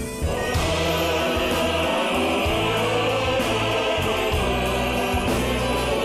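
Male military choir singing, holding long sustained chords over music.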